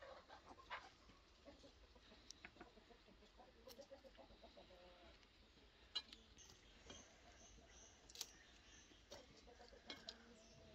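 Faint chickens clucking in the background, with scattered soft clicks and taps as pepper rings are laid on meat in a cast-iron pot.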